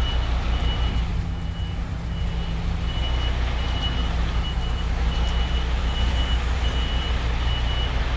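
A lorry's reversing alarm sounds one steady beep about every three-quarters of a second while the truck backs up. Under it the diesel engine runs at low revs.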